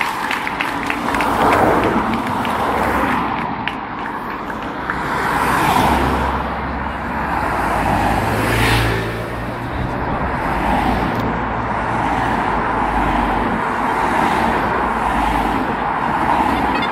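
A race convoy of a police motorcycle and team support cars passing close by on the road, with engine and tyre noise. The low engine rumble is heaviest in the middle stretch.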